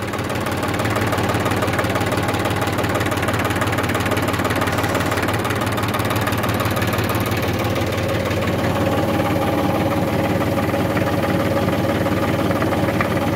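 Mahindra 265 DI three-cylinder diesel tractor engine idling steadily at about 600 rpm. A steady higher tone joins about eight seconds in.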